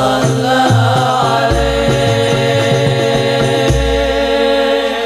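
Male voices singing sholawat together to a hadrah ensemble: rebana frame drums keep a steady beat, with a deep bass-drum stroke about every two seconds. The drumming stops about four seconds in while the voices hold on.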